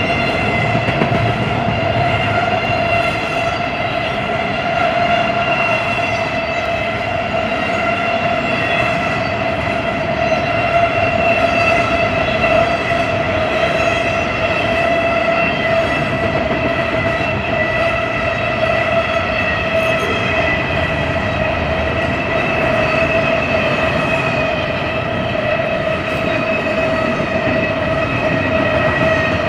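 Double-stack intermodal freight train's well cars rolling steadily past, the rumble of the wheels on the rails under a continuous high ringing tone that drifts slightly lower in pitch.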